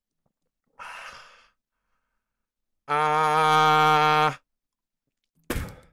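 A man retching. A breathy heave comes first, then a long, loud groan held at one pitch, and a sharp thud near the end.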